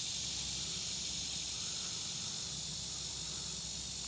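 Steady high-pitched chorus of insects, unchanging throughout.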